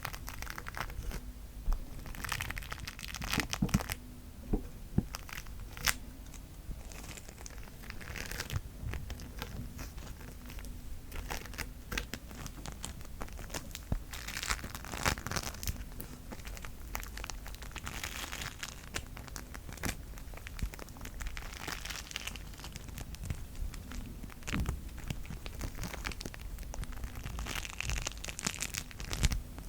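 Bead slime (slime packed with small beads) being squeezed and worked by hand, making dense irregular crackles and pops that swell every few seconds.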